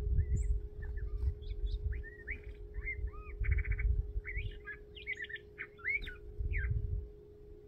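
A thrasher singing a long, varied run of short whistled and slurred phrases, with a buzzy rattle about three and a half seconds in; the song stops near the end. A low rumble and a faint steady hum lie underneath.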